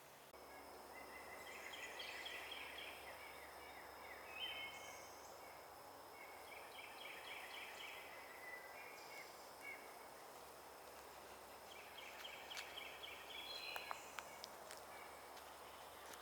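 A songbird singing a quick run of repeated chirps three times, a few seconds apart, over a faint steady background hiss of distant noise.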